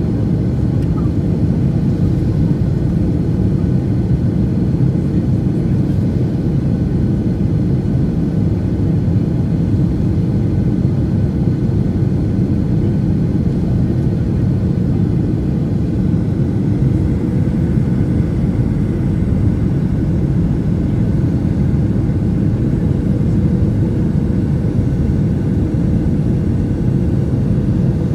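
Jet airliner cabin noise on approach to landing: the engines and airflow give a steady low rumble, with a few faint steady tones above it.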